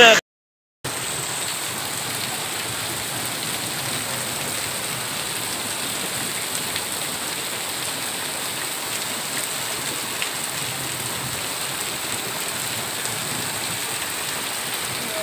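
Heavy rain pouring steadily onto a flooded street and wet pavement, an even hiss that cuts in after a brief silence about half a second in.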